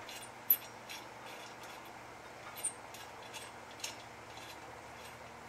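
A few sharp metallic clicks and clinks of a wrench working an old bolt on a motorized bike's muffler bracket, the loudest about half a second in and a couple more near the middle, over a faint steady hum.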